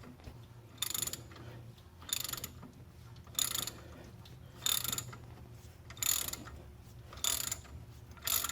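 Large 1/2-inch-drive hand ratchet clicking in short bursts about once a second, seven times, as it is swung back and forth to back out a stubborn old water pump bolt. A faint steady low hum sits underneath.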